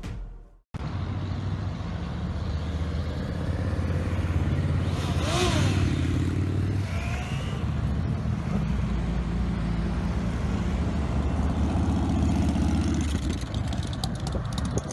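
Motorcycle engines running steadily on the road, with a vehicle passing close by about five seconds in.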